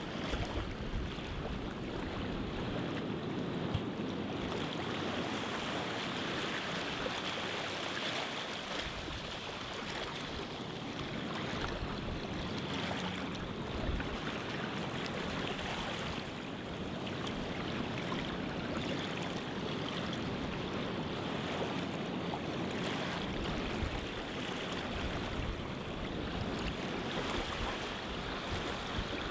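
Steady rushing noise of sea water and wind, with no distinct events.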